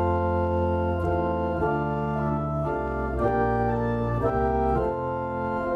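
Church pipe organ played with full held chords over deep bass notes, the harmony changing about every half second to a second. The playing breaks off briefly near the end, then starts again.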